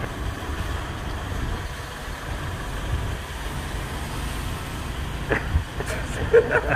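Steady low outdoor rumble, with a few short voice sounds and clicks near the end.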